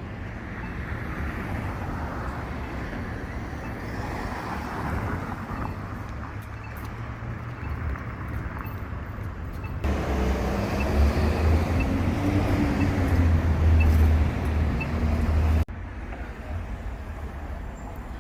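Street traffic going by. About ten seconds in, a nearby vehicle's engine grows louder with its pitch rising and then falling, and cuts off suddenly near the end, leaving quieter traffic noise.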